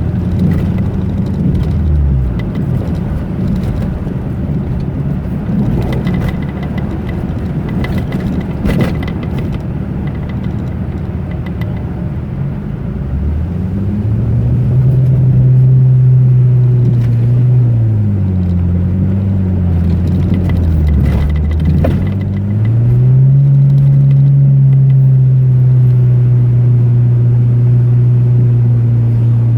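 Car engine running on the move. Its note drops about two seconds in, climbs under acceleration, dips and climbs again, then holds a steady drone near the end. A few knocks and rattles from the bumpy road come in the first third.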